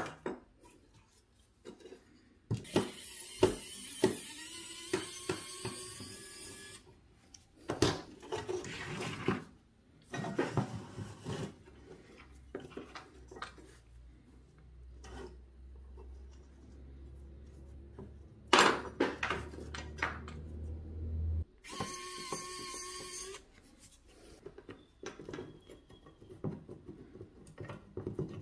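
Rusty diecast model car being taken apart by hand: small metal parts click, tap and scrape against each other and the tabletop. Two stretches of a steady whir a few seconds long break in, the first a few seconds in and the second near the end.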